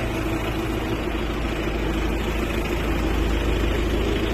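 A heavy engine running steadily at a constant speed: a low rumble with a steady hum above it.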